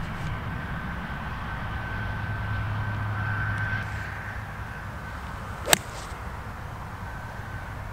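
A golf iron swishes through and strikes a teed ball: a single sharp, loud click about six seconds in, preceded by a short swish of the swing.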